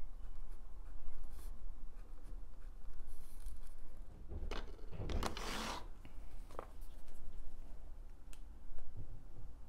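Ballpoint pen scratching on a notebook page in short strokes, with a louder brushing scrape lasting under a second about five seconds in.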